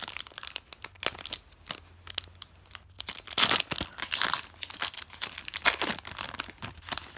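A hockey card pack wrapper being torn open and crinkled by hand: irregular crackling and ripping, loudest in bursts around the middle and near the end.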